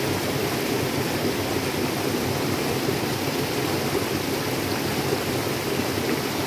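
Small stream running, a steady rush of flowing water with no breaks.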